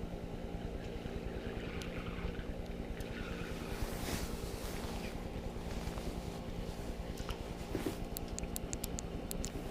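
Steady low mechanical hum, with a quick run of sharp, high clicks about eight seconds in.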